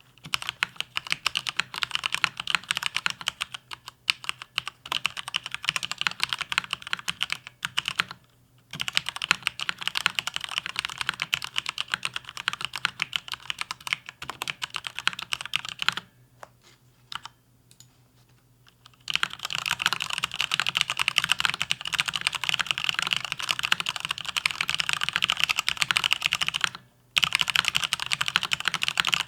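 Fast, steady typing on a Mountain Everest Max mechanical keyboard with Cherry MX Red linear switches: a dense run of key clacks. It breaks off briefly about a third of the way in, pauses for about three seconds past the middle, then stops once more, briefly, near the end.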